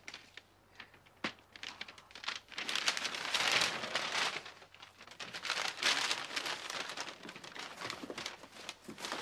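Brown wrapping paper crackling and crumpling as a parcel is unwrapped, loudest from about three seconds in, with a few light clicks before it.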